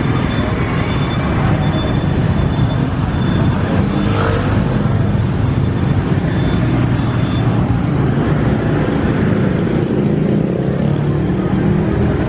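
Dense motorbike and scooter traffic, mixed with a few cars, running past close by in a steady, loud wash of small engines and tyres.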